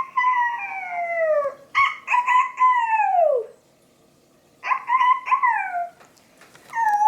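A pet dog howling in imitation of a rooster's crow. It gives three drawn-out howls, each dropping in pitch at its end, the second broken into two parts.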